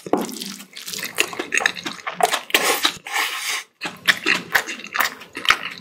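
Close-miked eating of bibimbap: a fast, irregular run of wet chewing and smacking mouth noises.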